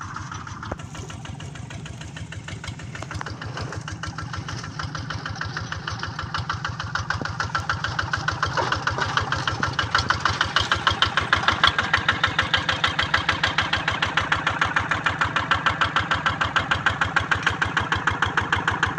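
Kubota RD85 single-cylinder diesel engine on a walking hand tractor, running steadily with each firing stroke heard as a distinct regular pulse. It grows louder about halfway through as the tractor comes close.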